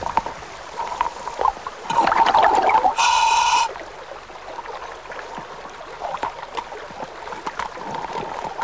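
Scuba diver breathing through a regulator underwater: gurgling, crackling exhaled bubbles, with a loud burst of bubbles and hiss about two to four seconds in.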